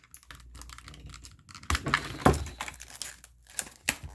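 Stiff plastic blister packaging being handled and pried open: irregular crackling and sharp clicks, loudest about two seconds in.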